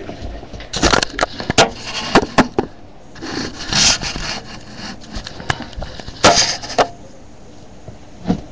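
Handling noise on the webcam's microphone: a run of knocks and clatter, then two brief rubbing scrapes, as the camera is moved and set down. It goes quieter near the end.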